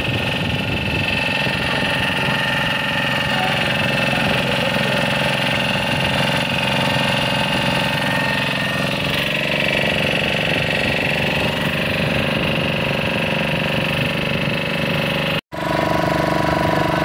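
Motorboat engine running steadily under way, a constant drone with several steady tones. It cuts out for an instant about fifteen seconds in, then carries on with a cleaner, steadier hum.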